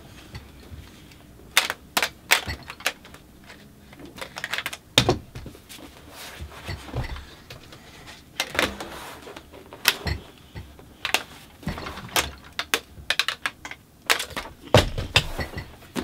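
Plastic action figures clacking and knocking against each other and the tabletop in irregular clusters of sharp clicks.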